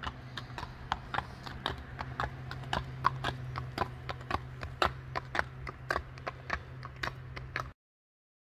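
Rocky Mountain Horse's hooves clip-clopping on a paved road at a steady pace, about four strikes a second, over a steady low hum. The sound cuts off suddenly near the end.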